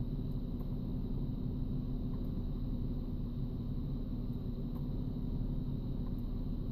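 Pickup truck engine idling steadily, heard from inside the cab as an even low rumble.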